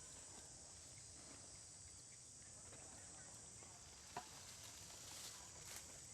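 Near silence: a faint steady high hiss of background ambience, broken by a single sharp click about four seconds in and a few faint ticks after it.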